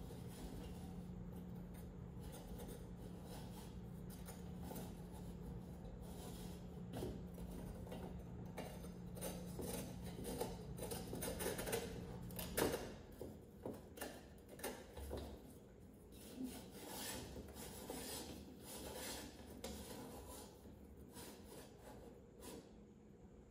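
Irregular rubbing and scraping on small metal parts by hand, under a steady low hum that cuts off with a sharp click about halfway through; quieter handling noises follow.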